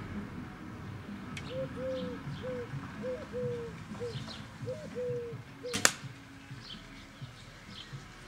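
A bird's low cooing call repeated in short phrases, with small birds chirping faintly. Just past the middle, one sharp, loud snap of an arrow being shot from a bow into the lawn.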